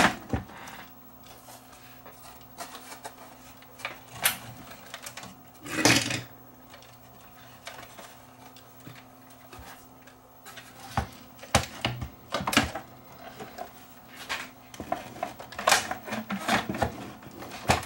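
Irregular clicks, knocks and clatter of a CRT monitor's chassis and cabinet parts being handled and fitted together during reassembly, with one louder knock about six seconds in and busier handling near the end.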